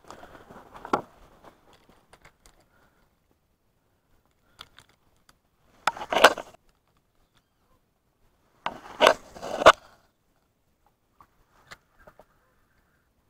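Casting a spinning rod and reel: two short scraping bursts with sharp clicks, about three seconds apart, the first about six seconds in.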